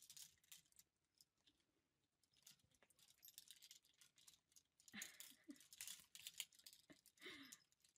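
Faint, scattered clicking and rattling of plastic clothes hangers knocking on a closet rail as a kitten climbs among them, with a couple of brief soft vocal sounds about five and seven seconds in.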